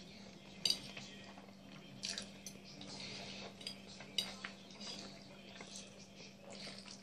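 A metal fork clinking and scraping against a ceramic plate of pasta and chicken, with a few sharp clinks about two seconds apart and chewing between them. A steady low hum runs underneath.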